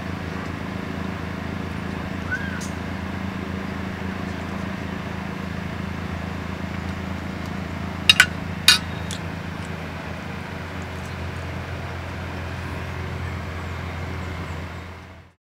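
A steady low motor hum, with three sharp clinks of a metal spoon against an enamel plate about eight seconds in; the sound fades out at the very end.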